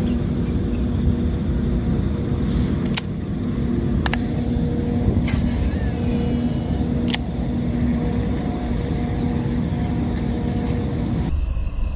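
A motor vehicle engine running, with a steady low rumble and a wavering hum. A few sharp clicks cut through it.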